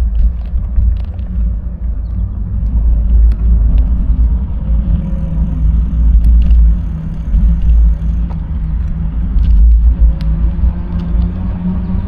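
Low, continuous road and wind rumble from a bicycle in motion, swelling and dipping in loudness.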